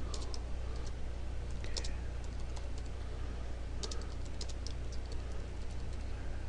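Typing on a computer keyboard: sparse keystroke clicks in short runs, over a steady low hum.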